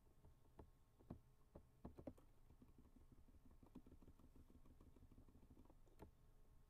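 Near silence with faint, irregular clicks from a computer mouse and keyboard being worked, over a low steady room hum.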